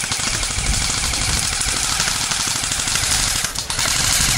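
Airsoft guns firing in rapid strings, a dense fast clatter of shots that runs without a break.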